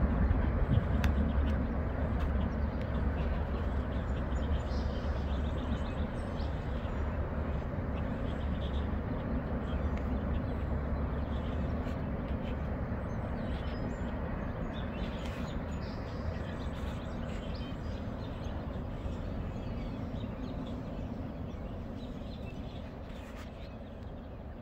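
Low rumble of a Norfolk Southern doublestack freight train rolling away, fading slowly.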